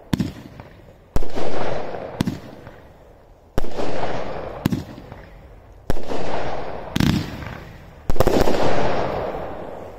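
Johnathan's Fireworks 'Blue Prince' baby-reveal firework going off shot after shot: duller thumps alternate with louder, sharper bangs, each trailing off in a long echo over about a second. Four of the loud bangs come about every two and a half seconds.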